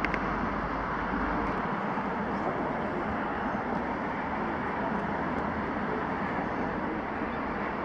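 Steady outdoor urban background noise, an even hiss and rumble with no distinct events.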